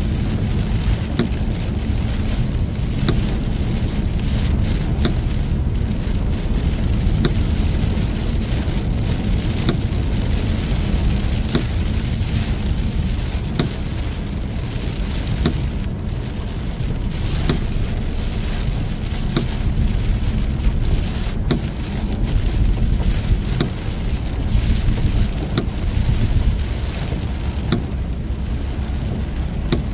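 Heavy rain falling on a car as it drives, with many sharp individual drop ticks over a steady low rumble of the car on the road.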